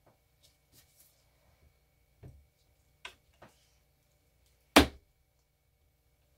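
Taps and knocks from cutting a loaf of cold-process soap into bars on a wooden soap cutter. There is a soft thud a little after two seconds, two light taps around three seconds, and one sharp, loud knock near five seconds.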